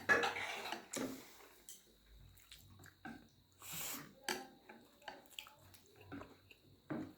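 Mouth sounds of eating buffalo sukuti chowmein: chewing and smacking, with scattered small clicks and a short airy slurp a little before the middle.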